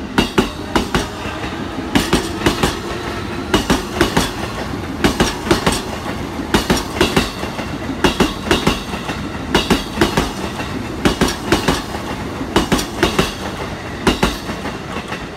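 JR East E233-0 series electric commuter train running past at steady speed, its wheels clacking over rail joints in regular groups of clicks about every second and a half over a steady rumble.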